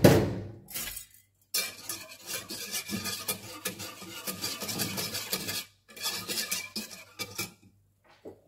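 A sharp knock at the start, then a wire whisk beating flour into cold milk in a saucepan: a quick, dense run of metal clinks and scrapes against the pan from about a second and a half in, a short pause near six seconds, then more whisking.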